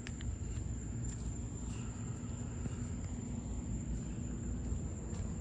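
Steady low hum and hiss with a constant thin high-pitched whine over it, and a couple of faint clicks near the start: the background noise of a weather-radio recording in the gap between broadcast messages.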